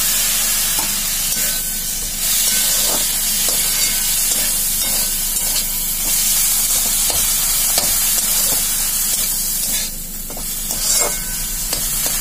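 Grated radish, green peas and chopped tomato sizzling in oil in a kadai, a flat metal spatula scraping and stirring through them. A steady hiss with scattered scrapes of the spatula against the pan.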